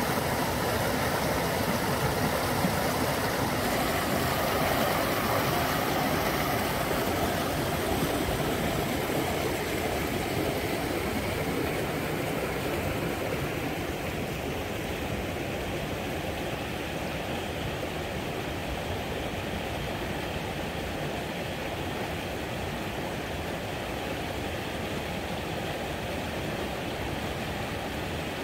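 River rapids rushing steadily, a continuous roar of fast water. From about halfway through it grows a little quieter and duller.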